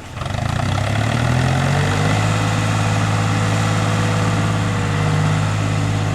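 Off-road vehicle engine rising in speed within the first second, then running steadily at raised speed.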